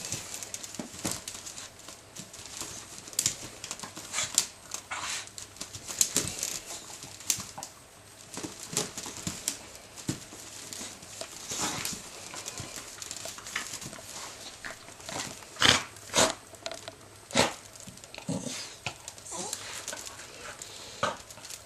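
Jack Russell terrier puppy pawing and nosing at the cushion in a wicker dog basket, with irregular rustling and scratching of fabric and wicker. A few louder scrapes come about three-quarters of the way through.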